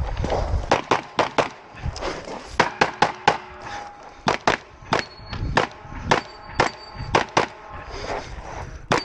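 9mm Glock pistol firing rapidly, the shots mostly in quick pairs with short pauses between groups.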